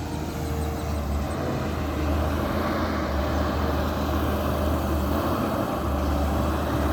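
Excavator's diesel engine running steadily while it digs, a continuous low drone.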